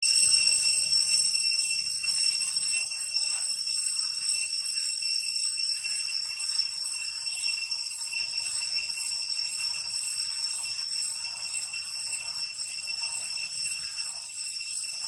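Steady, shrill insect chorus with several high fixed tones that hold evenly throughout.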